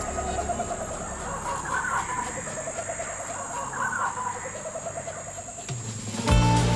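Outdoor animal sounds: bird calls repeating about every two seconds over a steady high-pitched insect trill. A loud low hum comes in near the end.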